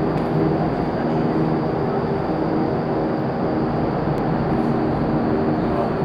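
Vertical wind tunnel running at flying speed: a steady rush of air with a constant hum of fan tones underneath.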